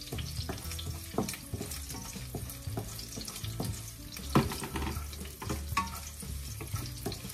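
Garlic sizzling in hot olive oil in a nonstick frying pan while a wooden spatula stirs it, scraping and tapping against the pan, with a sharper knock about four seconds in.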